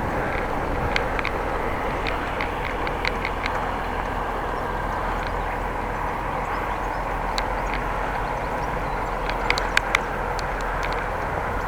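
Steady rolling and wind noise from riding a bicycle, with light clicks scattered through it and a few sharper ones near the end.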